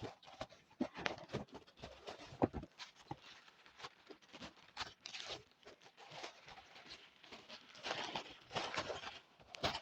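Plastic packaging rustling and crinkling as items are handled, with many small irregular clicks and taps; the crinkling grows louder about five seconds in and again near the end.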